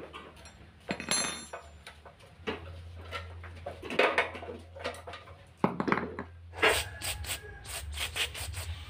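Metal tools and parts clinking and knocking on a workbench, irregular strikes, then a quick run of sharp clicks about five a second near the end, over a steady low hum.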